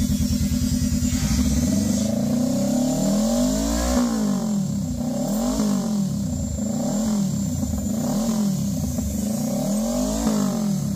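Honda Rebel 500's parallel-twin engine idling through aftermarket Von and Hans slip-on mufflers, then blipped about five times, the revs rising and falling roughly every second and a half. The exhaust note is a deep sound.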